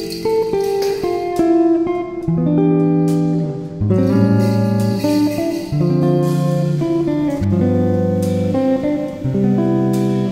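Background music: plucked guitar notes and chords in an unhurried rhythm.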